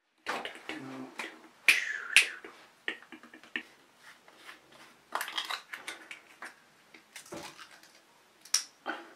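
Glass bottle of cold brew coffee being handled and opened: a scattered series of sharp clicks and taps from the cap and glass, the loudest two close together about two seconds in.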